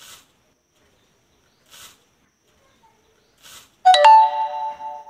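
A chime with several ringing tones starts suddenly about four seconds in and fades away over a second or so, likely a sound effect added in editing. Before it, a few faint short hissy sounds.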